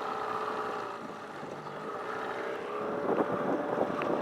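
Nissan 9.8 hp outboard motor running steadily at low speed on a small bass boat, its note dipping briefly about a second in and then steadying.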